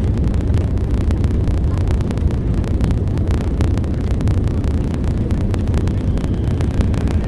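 Long, deep metro escalator running: a steady low rumble with rapid, irregular clicks.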